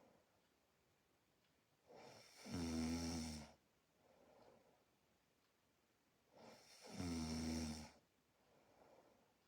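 A person snoring in sleep: two snores about four and a half seconds apart, each lasting over a second, with a soft breath between them.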